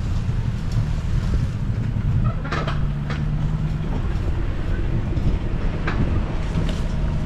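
A 4x4's engine running steadily at low trail speed, with a steady low drone and a few short knocks and rattles from the vehicle rolling over the rough dirt trail.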